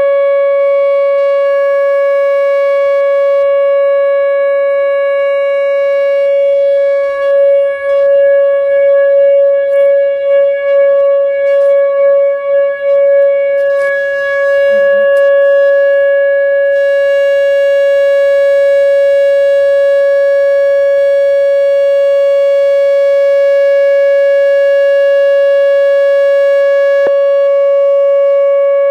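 Electronic outdoor tornado warning siren sounding a loud, steady tone that holds one pitch, during a routine siren test. The sound wavers in loudness for a few seconds around the middle.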